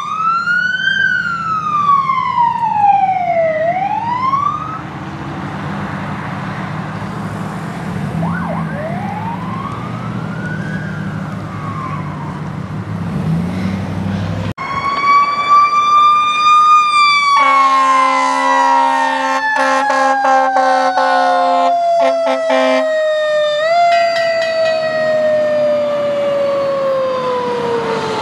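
Fire command pickup's siren wailing up and down, fading after about five seconds. Then a fire ladder truck's siren winding slowly down in pitch, with a series of air horn blasts in the middle.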